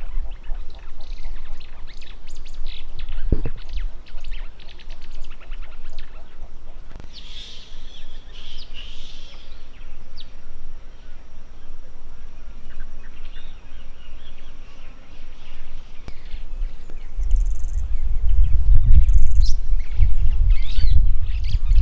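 Wild birds chirping and trilling in the bush, several calls overlapping. A low, uneven rumble runs underneath and grows heavier in the last few seconds.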